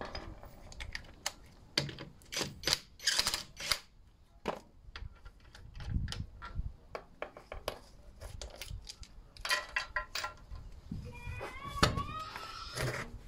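Irregular metallic clicking and clinking as the front wheel bolts of a 2010 Mini Cooper are turned out by hand and set down on concrete, with a few louder clattering spells, then the wheel is pulled off the hub. A short squeak comes near the end.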